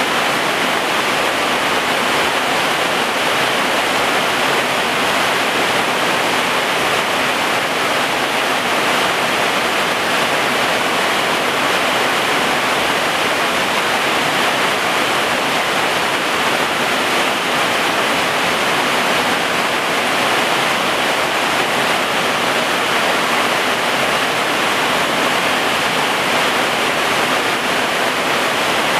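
Heavy rain falling steadily, a loud even hiss with no break.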